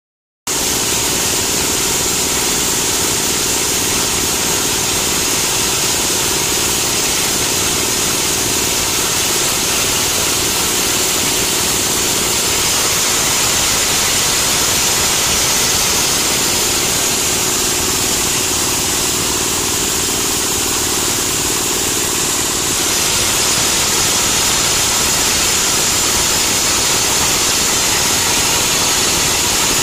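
Dried areca nut pulverizing machine, driven by an 8 HP diesel engine, running steadily and loudly while nuts are hand-fed into its hopper. The tone shifts slightly about 23 seconds in.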